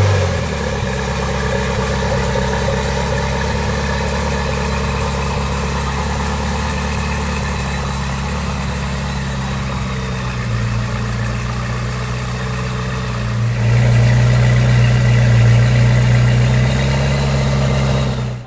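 Zenvo TSR-S's 5.8-litre twin-supercharged V8 settles from its start-up flare into a steady idle within the first half-second. It grows louder near the end, heard close to the tailpipes.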